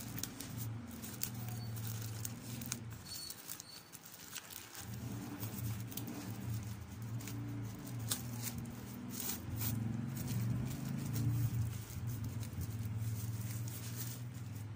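Plastic packaging crinkling and rustling as a parcel is torn open and unwrapped by hand. A low droning hum sits underneath and drops away briefly about four seconds in.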